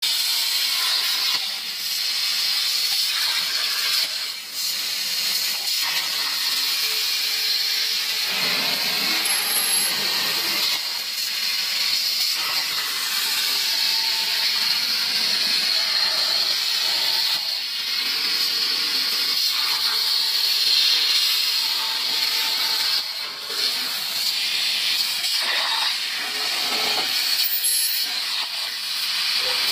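Plasma torch of a CNC plasma cutter cutting through metal plate over a water table: a loud, steady hiss from the arc, with small dips in level.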